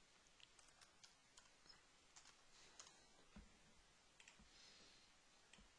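Very faint computer keyboard keystrokes and mouse clicks, heard as irregular scattered light clicks over near silence.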